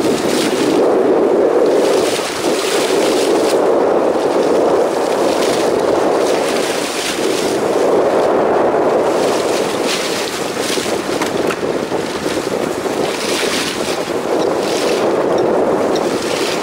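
Wind and sea noise aboard a small fishing boat on open water: a steady rushing hiss that swells and eases every few seconds.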